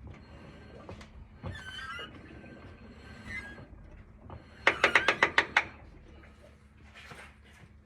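Transmission clicking: a rapid run of about eight loud, sharp clicks lasting under a second, about halfway through. A thump with a short squeak comes earlier.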